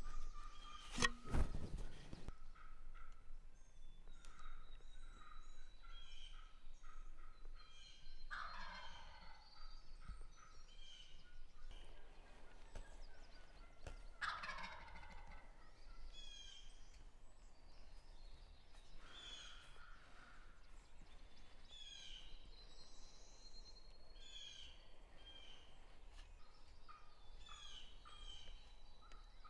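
Wild turkey gobbling several times, each a rattling call falling in pitch, loudest about 8 and 14 seconds in, with songbirds chirping throughout. A couple of sharp knocks at the very start.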